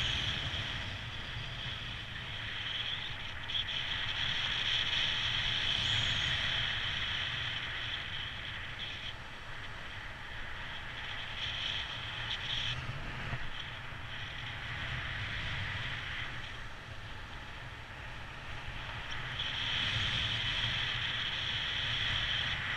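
Wind noise from the airflow of a paraglider in flight, rushing over the camera microphone. It is a steady hiss over a low rumble that swells and eases every few seconds.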